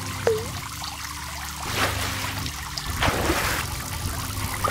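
Water sound effects: a single short drop-like plop near the start, then two bursts of splashing, rushing water about two and three seconds in, over a low steady hum.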